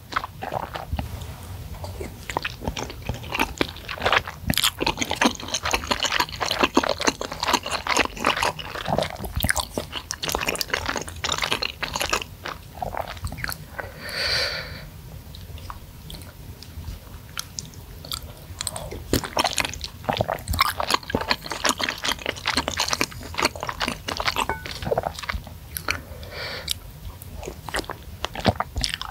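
Close-miked chewing and eating of spicy seblak noodles and meatballs: dense, irregular wet mouth clicks and smacks. Two brief slurps come about halfway through and near the end.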